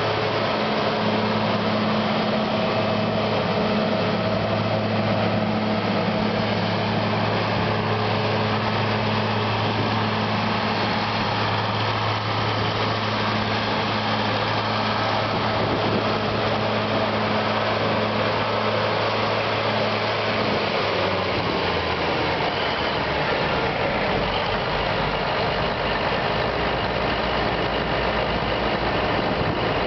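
Versatile 835 four-wheel-drive tractor's Cummins 855 six-cylinder diesel engine running steadily as the tractor drives around. About two-thirds of the way through, its pitch drops to a lower, steady note.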